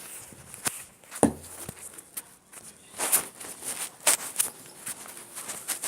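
A string of irregular clicks and knocks, with a fuller knock a little over a second in.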